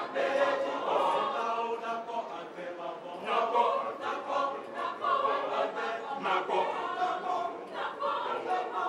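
A mixed choir of men's and women's voices singing together in parts, continuously.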